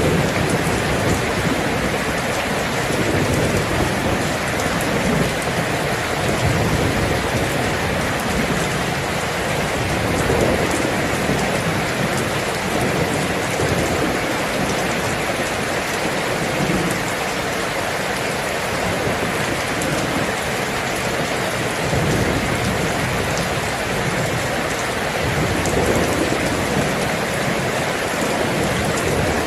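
Steady, dense rain, with a low rumble swelling and fading every few seconds.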